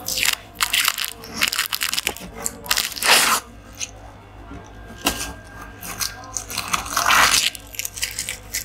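Clicks, knocks and short scraping and rustling sounds of an LED TV's plastic and metal parts being handled and pulled apart during disassembly, over a faint steady hum.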